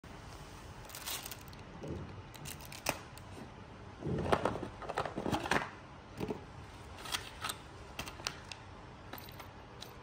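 Unboxing handling noise: plastic wrapping and bags crinkling, loudest in a rustling stretch around the middle, with scattered clicks and taps from the box and packaging being handled.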